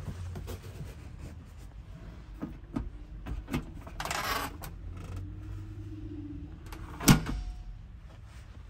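Scattered light clicks and knocks over a low steady hum, with a brief rustle about four seconds in and one sharp, louder knock about seven seconds in.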